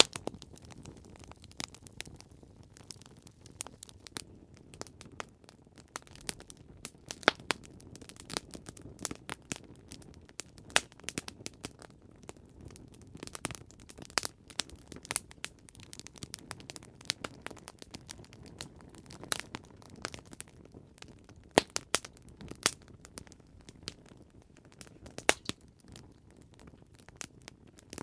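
Campfire crackling: irregular sharp pops and snaps of burning wood, several a second, over a soft low rush of flame.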